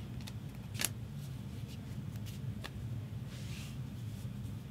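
Trading cards being handled and slid against one another, with a few sharp card snaps, the loudest about a second in, and a short sliding rustle past the middle. A steady low hum runs underneath.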